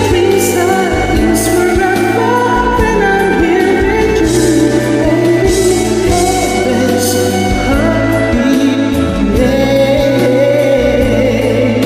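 A song: a singing voice over instrumental backing with a steady bass line.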